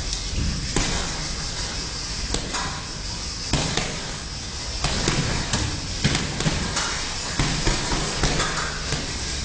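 Boxing gloves smacking as punches land during sparring: sharp, irregular knocks, a few spaced out at first and then several in quick succession in the second half, over a steady hiss.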